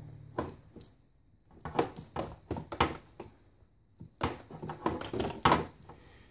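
Small child handling a plastic toy against a toy chest, rattling and knocking it in three bursts of quick clatter.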